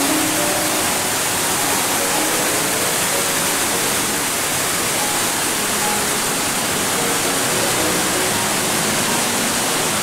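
A waterfall cascading over rock, its water rushing in a loud, steady, unbroken hiss.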